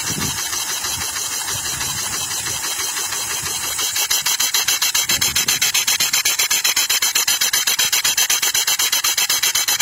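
Small gasoline engine converted to run on steam, exhausting steam in rapid rhythmic hissing chuffs. About four seconds in the chuffing turns louder and sharply pulsed, at around six or seven puffs a second.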